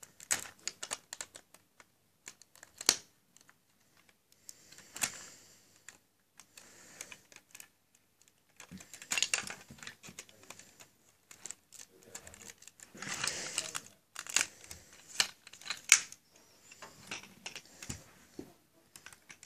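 Plastic Lego pieces of a Lego Hogwarts Express passenger wagon clicking and clattering as it is handled and pried open, in irregular bunches of clicks with a few sharper snaps.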